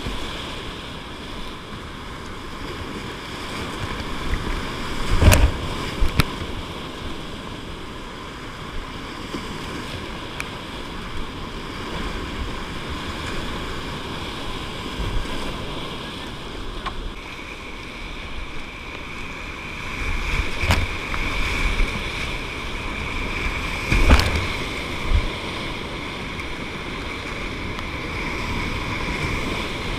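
Whitewater rapids rushing around a kayak, a steady loud churn of water. A few sharp knocks and splashes break through now and then, the loudest about five seconds in and again about twenty-four seconds in.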